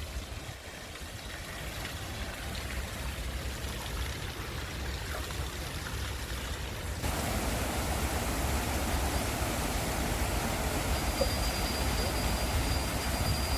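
Water rushing into a canal lock chamber as the lock fills: a steady rush that gets louder about halfway through.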